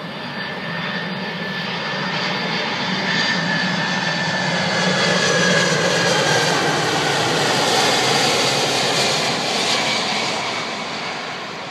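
VC-25A (Air Force One, a Boeing 747-200B) on final approach, passing low overhead with landing gear down. Its four General Electric CF6 turbofans make a jet noise that builds to a peak about halfway through and then fades as the plane heads down the runway, with a high whine that slides down in pitch as it passes.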